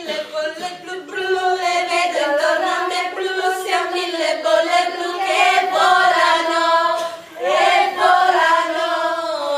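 Women's voices singing a melody together, with a short break about seven seconds in.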